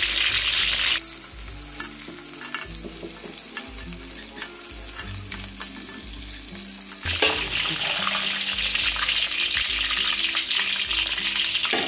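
Milkfish and fish balls deep-frying in hot oil in a wide metal wok, sizzling steadily, with a slotted spatula now and then scraping the pan as the fish balls are lifted out.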